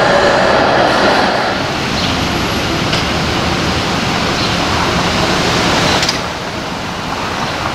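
A TTC CLRV streetcar running along the street rails as it passes close by, loudest in the first second or so. Steady street traffic noise follows.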